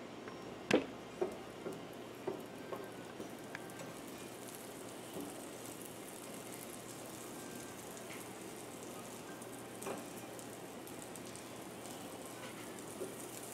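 Butter sizzling faintly as it melts in a hot frying pan on a gas burner, with a few light taps of a spatula against the pan near the start.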